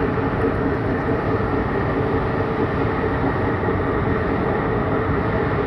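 Metal-working lathe running with a steady mechanical drone and a faint steady hum.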